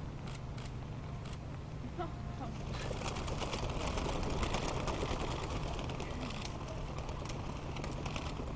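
White doves bursting out of a wicker basket and taking off, a dense rush of flapping wings that starts about three seconds in, is loudest soon after, and thins out after a few seconds.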